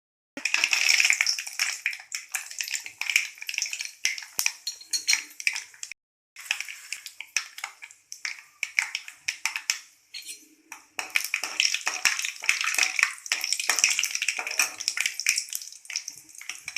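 Mustard seeds crackling in hot oil in a kadai, with a metal spoon stirring and clinking against the pan. The sound breaks off briefly twice.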